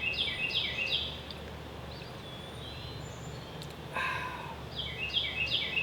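A songbird singing outdoors: a run of quick, repeated high chirping phrases at the start and again near the end, with a short louder call or noise about four seconds in.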